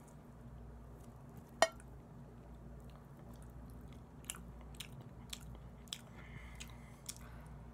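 A person chewing barbecue chicken with mouth smacks: one loud sharp click about a second and a half in, then short wet clicks about twice a second, over a steady low hum.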